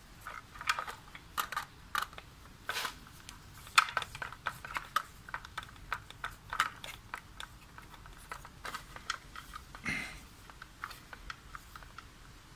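Screwdriver working the terminal screws of a changeover switch while wires are pushed into place: many irregular light clicks and small scrapes of metal on screw heads and plastic.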